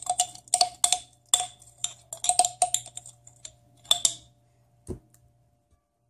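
Spoon tapping and scraping inside a jar of crab paste, a quick irregular run of clicks with a faint ringing note, stopping a little after four seconds in; one dull knock about a second later.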